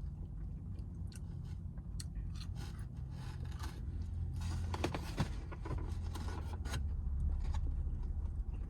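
Light clicks, scrapes and rustles of takeout food and its packaging being handled and eaten, over a steady low hum inside a car.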